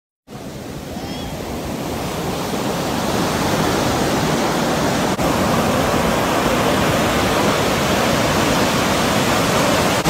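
Rough surf breaking on the beach as a steady rushing noise that fades in over the first few seconds, with a brief break about five seconds in.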